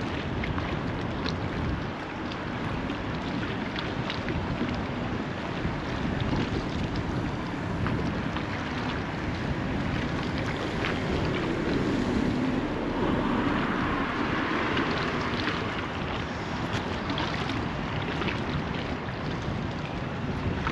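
Steady wind noise on the microphone over the wash of estuary water, swelling with a stronger gust about twelve seconds in.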